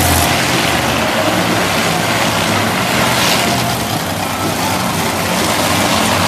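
Monster truck engine running loudly and steadily as the truck drives.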